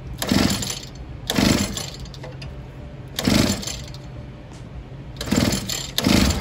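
Pocket bike's small two-stroke engine being cranked over in four short bursts a second or two apart, turning over without catching: the tank has no fuel in it.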